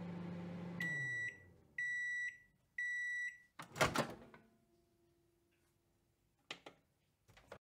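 Microwave oven finishing its cycle: the running hum dies away about a second in, then it beeps three times, followed by a loud clunk as the door opens and a couple of small clicks near the end.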